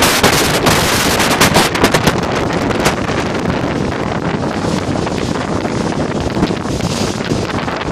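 Wind buffeting the microphone on the deck of a moving passenger boat, over the rush of water and the boat running underneath. The gusts come hard and fast for the first three seconds, then ease to a steadier rush.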